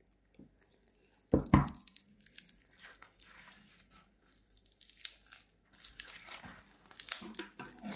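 Foam midsole of a running shoe being torn apart by hand: ripping and crunching of the foam, with two loud cracks about one and a half seconds in.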